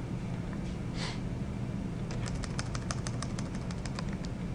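Computer mouse clicks and a quick run of keyboard key presses, about ten a second for a little over a second, over a low steady hum.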